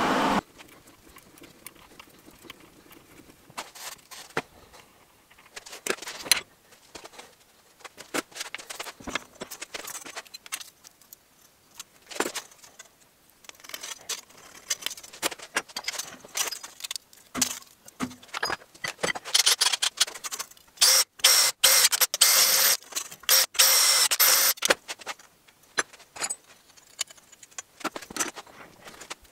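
Small steel parts and hand tools, a caliper and steel rule, clicking and clinking against a bench vise, with a louder stretch of quick, rapid scraping strokes past the middle. A steady machine noise cuts off at the very start.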